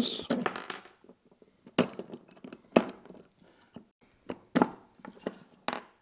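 Metal locking pins being pulled from a ClampZILLA 4-way panel clamp's adjustable tailpiece and set down on the bench top: several sharp metal clicks and clinks, one every second or so.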